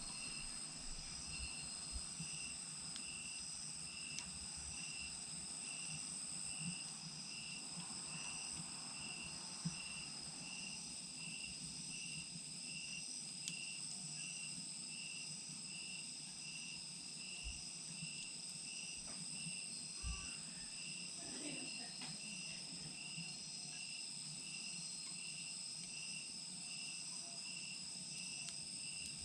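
Insects chirping steadily, one pulsing at about two chirps a second over a continuous high trill, with faint scattered crackles from a wood fire burning in a clay chimenea.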